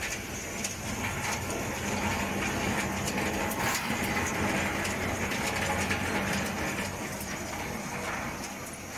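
Vegetable washing line's conveyor running: a steady motor hum under a haze of noise, with scattered light clicks as cut vegetable strips drop off the belt onto steel, growing a little louder through the middle.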